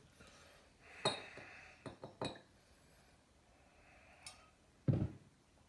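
Glass clinks and sharp clicks as a glass liquor bottle is handled and poured into a shot glass, with a duller knock near the end.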